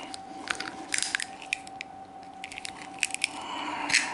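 Knife blade working a mussel shell open: scattered small clicks and taps of steel and shell, with a wet squish. A short breathy noise comes near the end.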